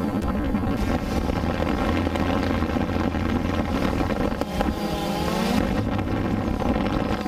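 DJI Phantom 2 quadcopter's rotors buzzing steadily, picked up by the onboard camera, with wind noise on the microphone. About five seconds in, the rotor pitch dips and rises again briefly.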